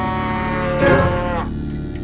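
Cartoon background music: a long held note that sags slightly in pitch, with a short rushing noise about a second in.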